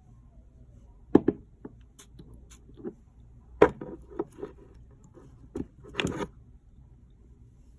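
Irregular short clicks, taps and squelches from slime and its containers being handled, about ten in a few seconds. The sharpest come a little over a second in and about three and a half seconds in, with a rougher squishy cluster near the end.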